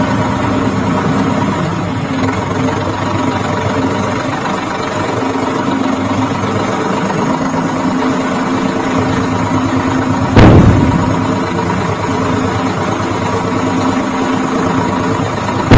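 Mini tractor's engine sound running steadily at an even pitch, with one loud knock about ten seconds in and another at the very end.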